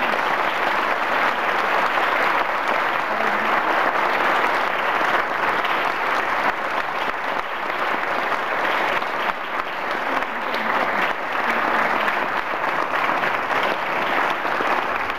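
A crowd of guests applauding: a long, steady round of clapping.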